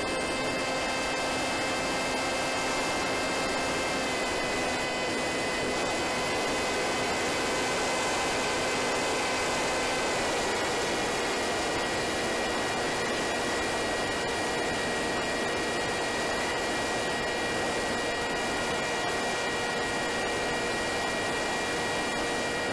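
Wing Wing Z-84 flying wing's electric motor and pusher propeller running steadily in flight, a high whine under a rush of wind on the onboard camera's microphone. The pitch of the whine steps slightly twice as the throttle changes.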